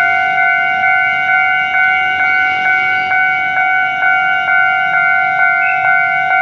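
Railway level crossing warning signal sounding continuously: a steady electronic tone pulsing about twice a second, the crossing held closed by a broken-down train.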